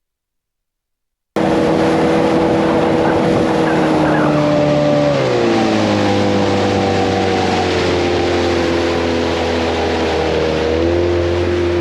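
Motorboat engine running at speed over rushing wind and water noise, cutting in abruptly about a second in. Its pitch drops as it throttles back about five seconds in, then rises a little near the end.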